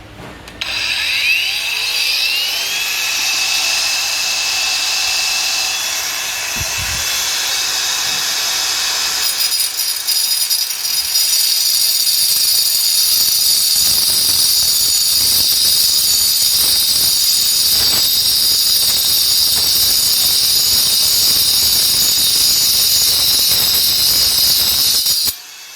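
Cordless brushless angle grinder with a 4-inch Lenox Metalmax cutting disc spinning up with a rising whine, then cutting through metal with a steady, loud, high-pitched grinding hiss. The sound gets brighter about nine seconds in and stops suddenly near the end.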